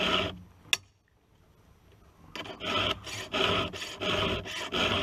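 Round file rasping across a chainsaw chain's teeth. One stroke, then a sharp click, then a pause of over a second. From about halfway in, steady strokes follow at about two a second.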